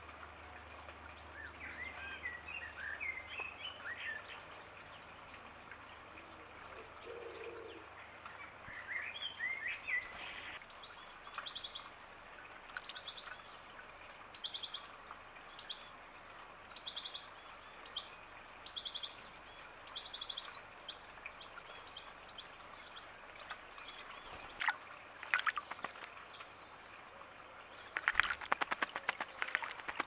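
Wild birds singing short warbling phrases, then a short high chirp repeated every second or so. Near the end, a blackbird splashing as it bathes in a stone bird bath.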